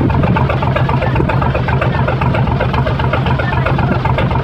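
Truck engine running steadily close by, a loud low drone, while the truck is hauled slowly up a slope on cables.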